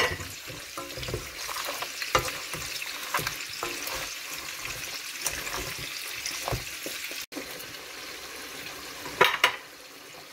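Crabs sizzling in sauce in a wok and shrimp frying in hot oil, a steady sizzle. A wooden spatula turning the crabs knocks and scrapes against the pan and shells at irregular moments, with two louder knocks near the end.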